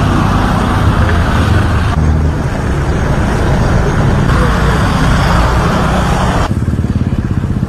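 Roadside outdoor noise with road traffic, a loud steady rumble with hiss above it. It changes abruptly about two, four and six and a half seconds in as the audio cuts from one clip to the next.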